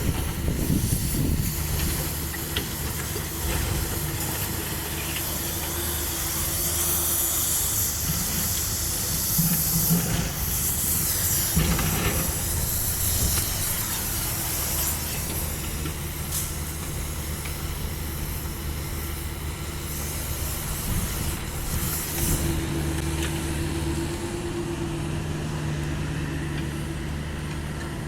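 Caterpillar 305.5E2 mini excavator's diesel engine running steadily under a constant hiss, with a few scattered knocks and scrapes as it works the rubble.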